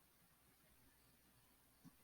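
Near silence: faint room tone, with one brief, faint low thump near the end.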